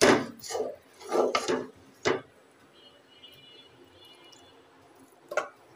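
A cooking spatula scraping fried vegetables out of a metal wok and into a steel bowl: four quick scrapes in the first two seconds, then a single clink near the end.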